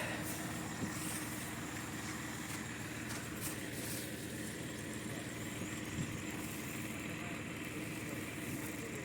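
Engine running steadily at a constant speed, with an even low hum.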